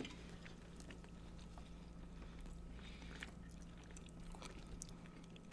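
Faint chewing and biting of food, with scattered small wet clicks and smacks over a low steady hum.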